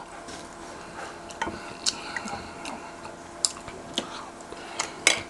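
Eating sounds: about seven sharp, scattered clicks and taps over a faint steady hum.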